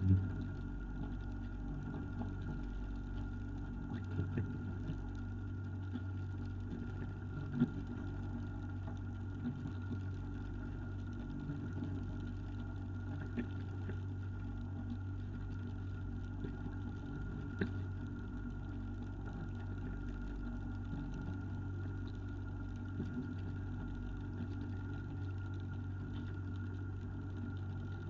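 Fishing boat's engine running steadily with an even low hum and a steady higher whine, with a few sharp knocks over it.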